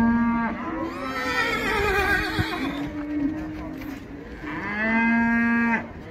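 Cattle mooing: a long, steady moo at the start and another about four and a half seconds in, with higher, wavering calls in between.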